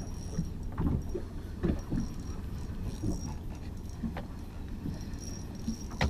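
Small boat rocking at sea: a steady low rumble of water and wind on the hull, with irregular knocks and thumps every second or so.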